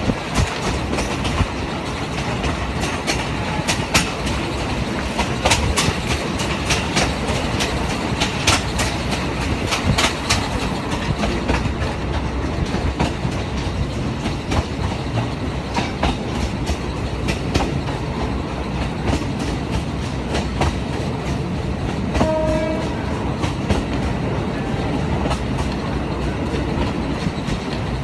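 Yangon Circular Line passenger train running, heard from the carriage window: a steady rumble with the wheels clacking over rail joints, the clacks thickest in the first ten seconds. A brief pitched tone sounds about two-thirds of the way through.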